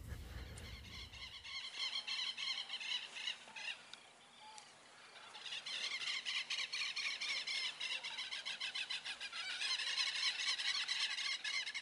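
Many birds chirping and chattering rapidly in a dense chorus, easing briefly about four seconds in and then building again.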